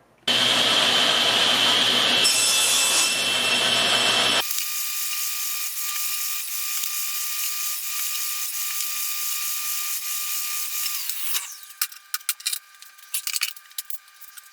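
SawStop contractor table saw cutting plywood. A loud burst of blade-through-wood noise starts suddenly under a second in. About four seconds in the low end drops away, leaving a steady high whine until about eleven seconds. A scatter of sharp clicks follows near the end.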